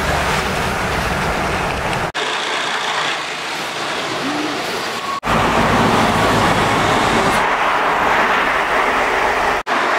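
Street traffic noise: road vehicles running past, heard in short clips that change abruptly about two, five and nine and a half seconds in, with the traffic loudest from about five seconds in.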